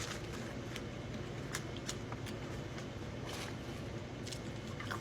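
A person chewing food with scattered sharp, wet mouth clicks and smacks, over a steady low hum.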